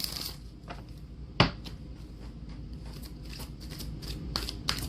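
A deck of oracle cards being shuffled by hand, with one sharp tap about a second and a half in and a quick run of card flicks near the end.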